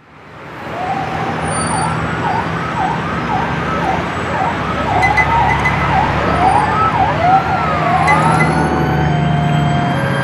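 Sirens wailing, several rising and falling tones overlapping one another over a steady low hum, fading in over the first second.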